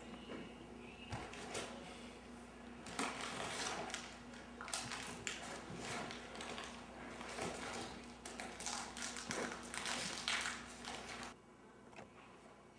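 Wrapper crinkling and rustling as it is handled and torn open, in irregular crackly bursts, stopping suddenly near the end.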